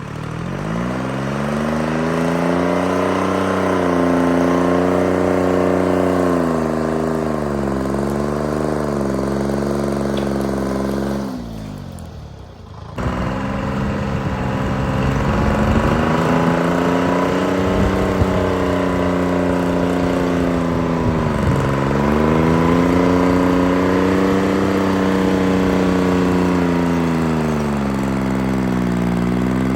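Detroit Diesel 3-53 three-cylinder two-stroke diesel of a Timberjack 225D skidder working. It revs up at the start, then its pitch rises and falls repeatedly with throttle and load. The sound dips and cuts out briefly near the middle, then comes back at full revs.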